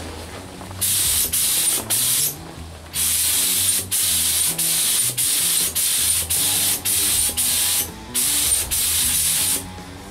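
Compressed-air gravity-feed spray gun hissing in a run of short bursts as the trigger is pulled and released, spraying paint onto small parts. Faint background music runs underneath.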